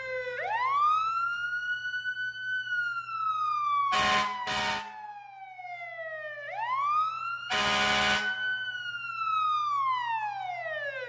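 Fire truck siren wailing, each wail rising quickly and then sliding slowly down, about every six seconds. Two short horn blasts about four seconds in and a longer one near eight seconds sound over it.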